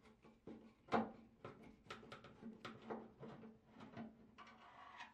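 Screwdriver backing a screw out of a washer's sheet-metal front panel: faint, irregular clicks and scrapes of the tool turning in the screw, with one louder click about a second in and a short scrape near the end.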